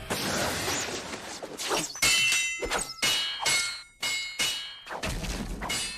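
Anime fight sound effects: a rapid series of hits and metal clashes, roughly two a second, several with a short ringing metallic tail, as of blades striking.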